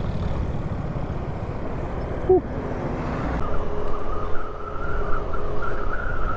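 Motorcycle riding on the highway: wind buffeting the helmet camera's mic over the steady hum of the engine and road. A short chirp comes about two seconds in, and a steady thin whine joins a little past halfway.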